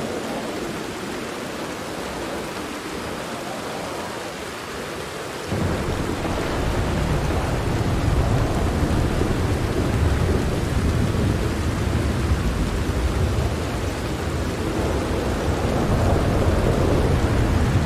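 Steady rain falling on a tent. About five and a half seconds in, a deep thunder rumble starts suddenly and keeps rolling, swelling and easing, under the rain.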